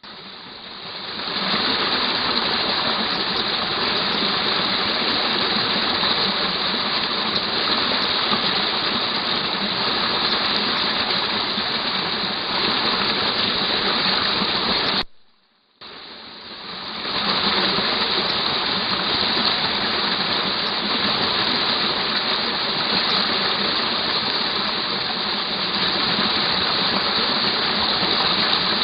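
Steady rushing hiss from a Bushnell trail camera's microphone beside a small rocky stream, swelling in level over the first second or so of each recording. About halfway it breaks off for about a second where one triggered clip ends and the next begins.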